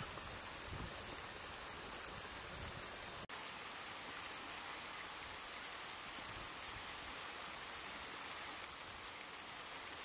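Steady hissing noise with no distinct bird calls; it cuts out for an instant a little over three seconds in.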